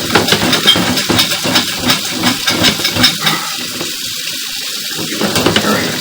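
Steady hiss of running water, with irregular knocks and rattles through the first half that die away about halfway through.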